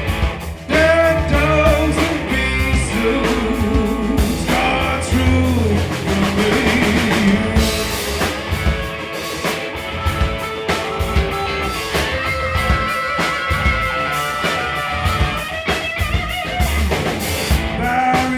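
Live blues-rock band playing an instrumental break between verses: a lead guitar with bending, wavering notes over a drum kit.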